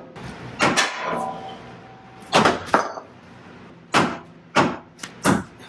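Hammer blows on the sheet-metal pinch welds in a Ford Raptor's front wheel well, bending them flat to make room for 37-inch tyres: about seven irregularly spaced metallic clangs, some in quick pairs, each ringing briefly.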